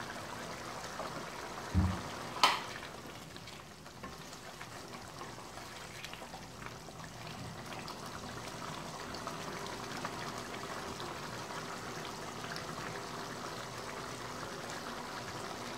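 Jackfruit gravy simmering and bubbling in a kadhai, a steady soft bubbling hiss. About two seconds in there is a dull thump, then a sharp knock, and around the middle a spoon stirs the gravy.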